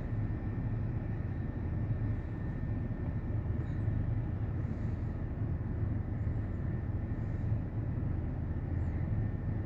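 Steady low rumble of outdoor background noise with a faint steady high tone, and a few faint brief chirps.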